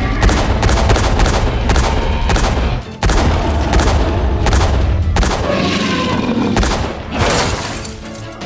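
Gunfire sound effect: rapid shots fired in quick succession over a deep rumble, with a short break about three seconds in and lighter, more scattered shots after about five seconds.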